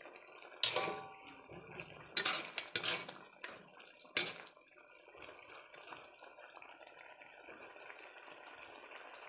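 Metal spatula scraping and knocking against a metal wok while stirring chicken in a watery soy-and-chilli sauce: several sharp strokes in the first four seconds or so, then only the faint steady simmer of the sauce.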